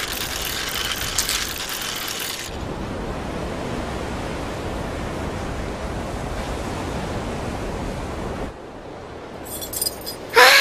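A steady rushing ambient noise, lower and fuller from about two and a half seconds in, that drops away shortly before the end, followed by a few light clicks.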